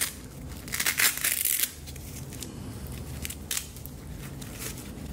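Hook-and-loop straps on dog shoes being pulled open: a rasping rip about a second in, lasting most of a second, followed by a few softer rustles and clicks as the shoes are handled.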